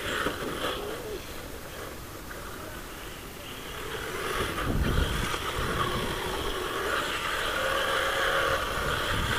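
Electric whine of an HPI Apache C1 Flux 1/8-scale RC desert buggy's brushless Alphastar Flux motor, mixed with tyre noise as the buggy drives around. The sound grows louder from about three and a half seconds in, with a short low rumble about five seconds in.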